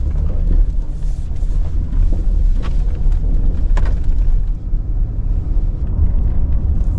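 Low, steady rumble of a truck cab while driving, from engine and tyres on the road. Two short sharp clicks come through about two and a half and four seconds in.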